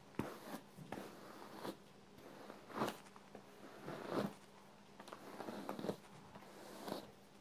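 A hairbrush dragged through thick curly hair: a series of short rustling strokes, irregularly spaced about one every second or so.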